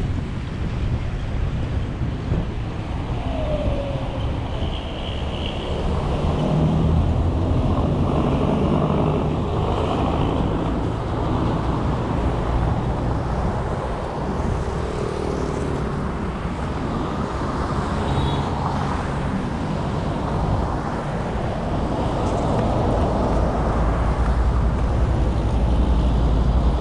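Road noise of a car driving through traffic: a steady rumble of engine and tyres with other vehicles around, getting a little louder near the end.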